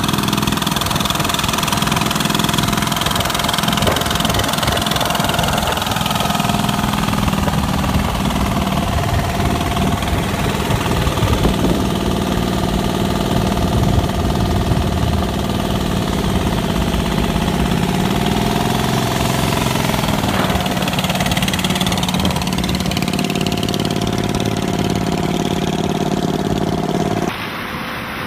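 Large engine of a custom-built motorcycle running loud and steady, its revs rising and falling briefly about two thirds of the way through. Near the end the sound drops abruptly to a quieter engine.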